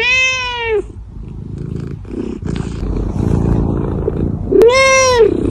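A cat meows twice, once at the start and again about four and a half seconds in, each call rising then falling in pitch, with a low rumbling noise between them.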